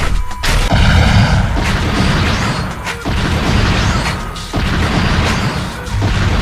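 Background music over a run of added punch and impact sound effects for a fight, several hard hits in a few seconds.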